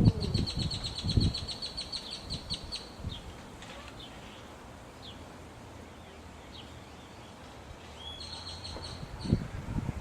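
Northern mockingbird calling: a fast run of high, rapidly repeated notes lasting nearly three seconds, a few single chirps, then another fast run near the end. Low thumps on the microphone near the start and near the end are louder than the bird.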